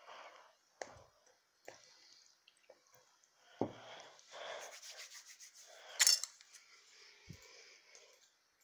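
Rubbing and scraping of hands working slime-making materials, with scattered short knocks and a sharp click about six seconds in.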